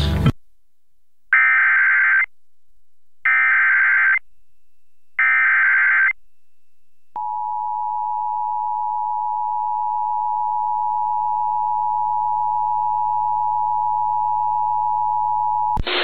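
Emergency Alert System SAME header: three bursts of buzzing digital data tones, about a second each with a second between them. Then comes the steady two-tone EAS attention signal, held for about nine seconds, the signal that opens an emergency alert broadcast on radio.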